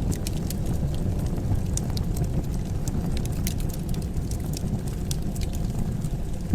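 Wood fire crackling: scattered sharp pops and crackles over a steady low rumble.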